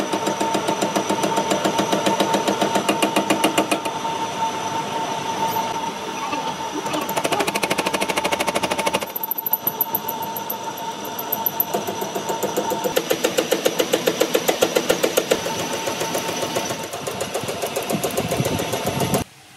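Metal lathe running with a wrench workpiece spinning in its chuck: a fast, even mechanical rattle with a steady whine. The sound changes abruptly a couple of times and cuts off suddenly near the end.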